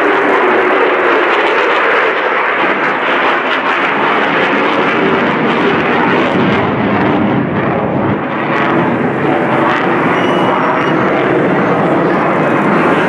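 F-35C Lightning II fighter's single F135 afterburning turbofan at high power with the afterburner lit, as the jet maneuvers low overhead: a loud, steady rush of jet noise.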